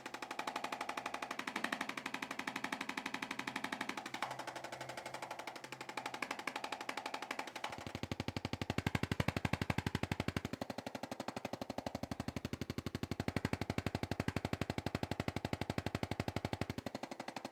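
Handheld electric percussion instrument rapidly and evenly tapping along a patient's spine to loosen the back muscles. Its sound grows fuller and deeper about eight seconds in, eases off for a moment a couple of seconds later, and thins again near the end.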